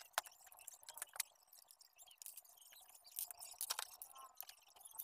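Faint, irregular clicks and light knocks as a car amplifier's circuit board is handled and slid out of its metal chassis, with a denser cluster of clicks a little past the middle.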